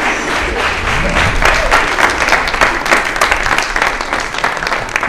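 Studio audience applauding: dense, steady clapping from many hands that starts to die away near the end.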